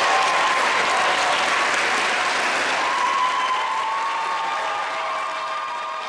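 Concert audience applauding, slowly dying away.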